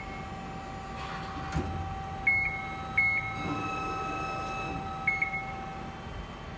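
Amada RG-25 hydraulic press brake running, its pump motor giving a steady hum. Over the hum come four short electronic beeps of one pitch and a soft knock.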